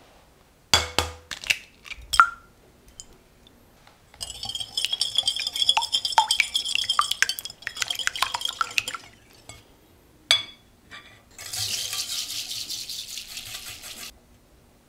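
An egg tapped and cracked against a glass bowl: a few sharp clicks, the last one ringing. A metal wire whisk then beats the egg in the glass bowl with rapid, ringing clinks for about five seconds. Near the end comes a steady hiss as cane sugar is poured in.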